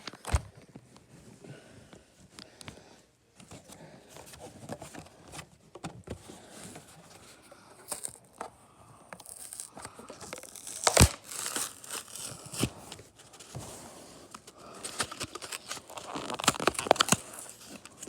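Hot Wheels cardboard-and-plastic blister card being torn open by hand: irregular tearing and crinkling of packaging with scattered sharp snaps, one loud snap about eleven seconds in and a busier spell of tearing near the end.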